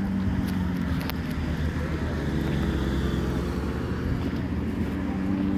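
A steady, low engine hum holding one pitch, over a low outdoor rumble.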